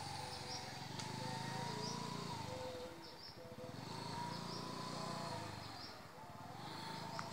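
Scooter running at low speed, its whine rising and falling gently as it goes, with a low hum that fades out twice.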